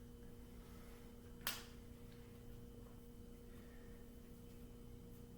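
Near silence: room tone with a faint steady hum, broken by a single sharp click or tap about a second and a half in.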